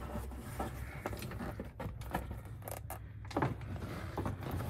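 A plastic wiring-harness plug being pushed and wriggled through a tight gap between plastic dash trim and the steering column: scattered light clicks and scraping of plastic on plastic.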